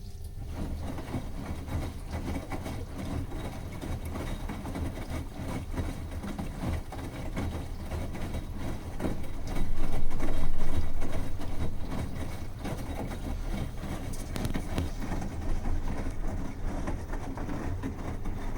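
Bosch washing machine running with its drum turning the wet load: a dense churning noise that sets in at the start and gets louder for a second or so around the middle.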